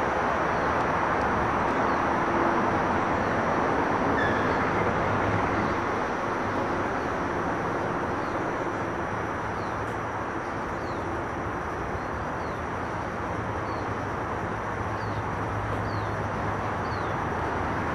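Steady outdoor background noise of distant city traffic, with faint, short bird chirps repeating about once a second in the second half.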